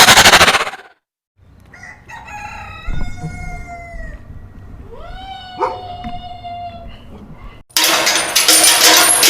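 Rooster crowing twice, each crow rising and then held. It comes between a brief loud noisy burst at the very start and a sudden loud noisy sound that cuts in near the end.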